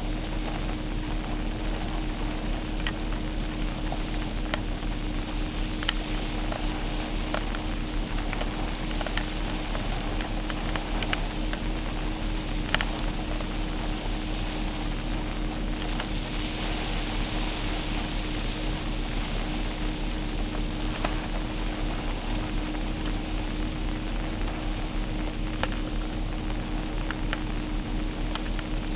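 Steady hurricane wind rushing, with a constant low hum underneath and scattered faint clicks and taps.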